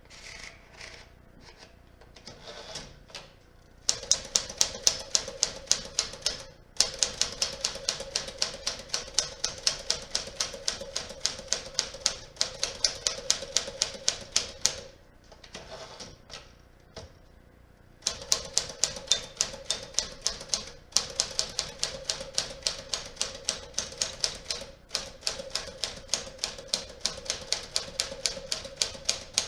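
Typing on a 1956 Smith Corona Clipper manual typewriter: a few scattered keystrokes, then two long runs of rapid, even key strikes at about four or five a second, separated by a short pause of only a few strokes. The machine is freshly cleaned, serviced and adjusted and types as it should.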